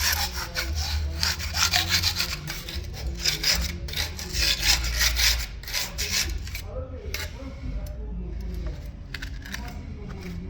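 Rapid back-and-forth rubbing strokes of a hand tool on a marble stair, working off old glue softened with chemical stripper. The strokes come thick and fast, then thin out to a few scattered rubs about seven seconds in.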